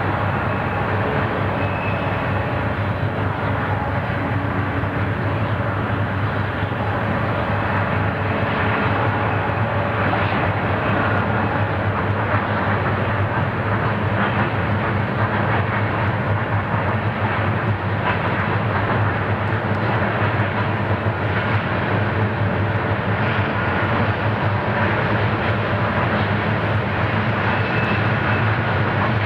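Diesel-electric locomotives hauling an empty coal train up a grade, their engines making a steady drone that grows slightly louder about a third of the way in as the train approaches.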